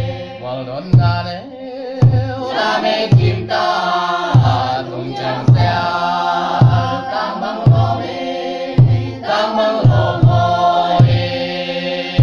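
Chant-like group singing in a traditional style over a deep drum struck about once a second, in a steady beat.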